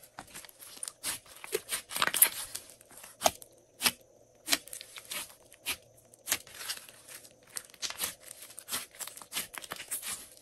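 Thick glossy slime being pressed and squeezed by hand, giving irregular sharp pops and crackles as trapped air bursts out of it.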